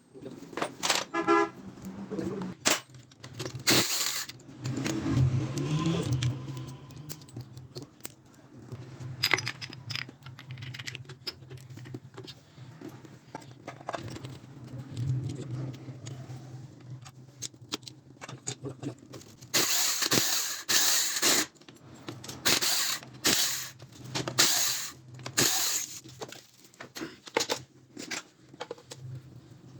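Metal engine and gearbox parts of a stripped-down Honda CD 70 clinking and knocking as they are handled, with a steady low hum and some traffic noise behind; the clatter is busiest in the second half.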